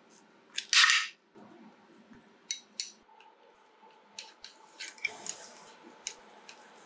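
Wooden chopsticks clicking and knocking against a nonstick saucepan while chicken gizzards cook over low heat, with a light sizzle. About a second in there is a short, loud clatter.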